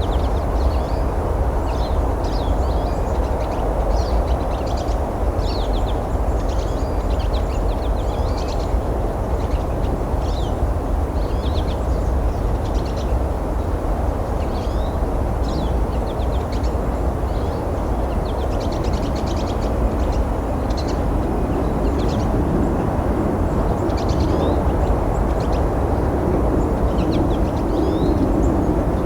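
Many short, high bird calls scattered throughout, over a steady low rumble.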